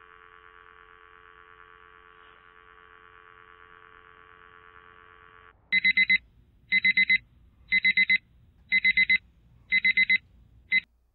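A faint, steady telephone dial tone on the line once the other end has hung up. About six seconds in, a digital alarm clock starts beeping loudly in quick groups of four, about one group a second.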